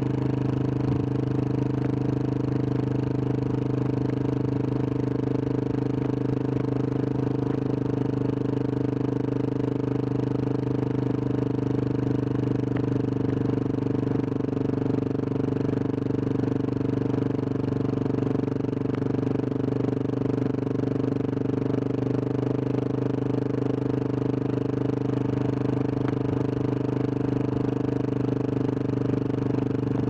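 Husqvarna 701 Supermoto's single-cylinder engine, with an aftermarket Wings exhaust, running at a steady pitch as the bike cruises at an even speed.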